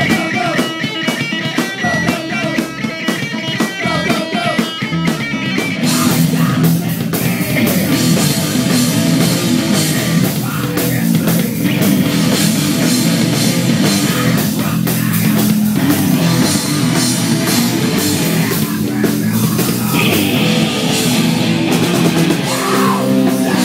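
Live rock band playing through guitar amps with a drum kit: a thinner guitar part over drum hits, then about six seconds in the full band comes in louder and denser.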